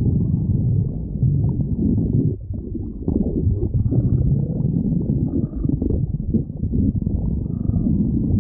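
Human stomach growling: continuous, irregular low gurgling rumbles, with a brief lull about two and a half seconds in.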